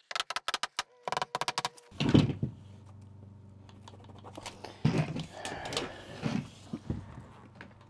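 A quick run of hammer strikes driving a steel nail plate onto a wooden stud over a pipe, stopping just before two seconds in. After that a steady low hum, with a few dull knocks as a drywall sheet is handled.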